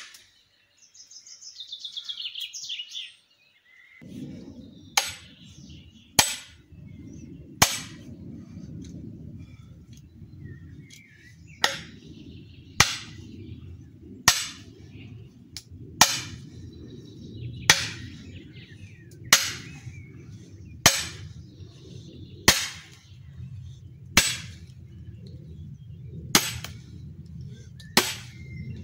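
Repeated sharp metal-on-metal hammer blows driving nails into a log to split it, about one blow every second and a half with a short pause a third of the way through, over a steady low rumble. A bird chirps briefly near the start.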